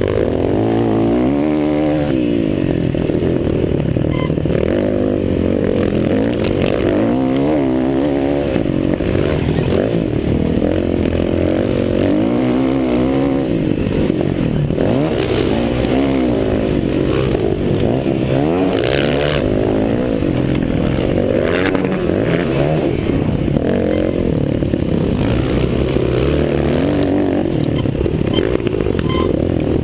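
Several motocross bikes' engines racing, their notes overlapping and rising and falling in pitch as riders open and close the throttle.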